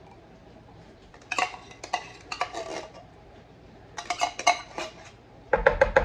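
Metal spoon knocking and scraping inside an opened tin can of condensed soup, emptying it over a bowl: three bursts of sharp clinks and scrapes with a short metallic ring, the last the loudest.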